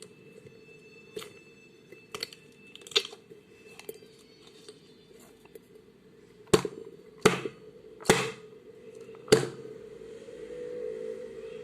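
Slime being handled by hand, giving sharp pops and crackles: a few small ones early on, then four loud pops about a second apart in the second half.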